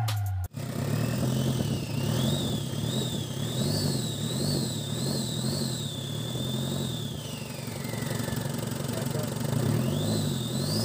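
Hyundai Starex diesel engine running and being revved up and down again and again, about once a second. A high whine rises and falls with the engine speed.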